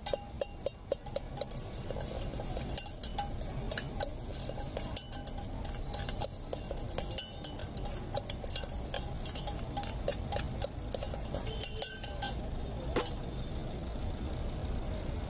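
Steel spoon stirring puffed rice in a stainless-steel container, clinking against its sides: a quick run of clinks at first, then irregular clinks that stop after one louder clink near the end. A steady low rumble runs underneath.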